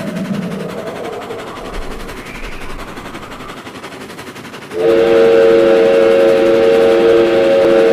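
A low, noisy rumble fades away. About two-thirds of the way in, a loud multi-note train horn chord starts and holds steady. It is used as the call of a giant train monster.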